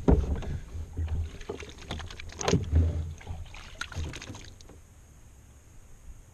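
Water splashing and sloshing beside a Hobie Pro Angler kayak as a hand dips into the water and shakes off, with several sharp knocks and bumps against the kayak. It quiets down a little over four seconds in.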